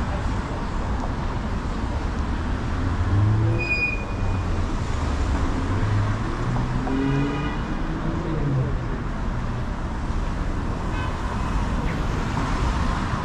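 Street traffic at an intersection: cars passing and pulling away, with a steady low rumble and engines rising in pitch. A short, high-pitched beep comes about four seconds in.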